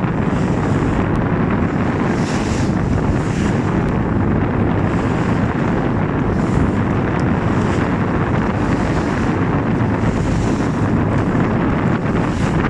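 Loud, steady wind buffeting the microphone on a fishing boat under way, mixed with the rumble of the boat and the sea.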